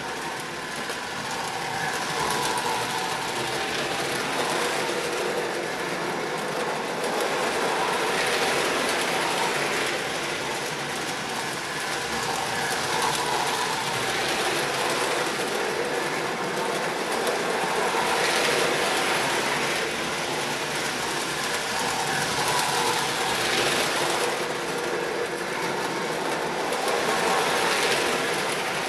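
Lionel toy train, a diesel locomotive pulling flatcars and a caboose, running on three-rail tubular O27 track: a steady motor hum and wheel clatter over the rail joints. It swells every five seconds or so as the train comes round the loop.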